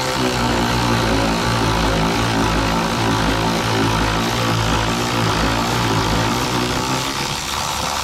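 Power tool motor running steadily and evenly for about seven seconds, then winding down, spinning a brake booster mounting nut off its stud after it was cracked loose.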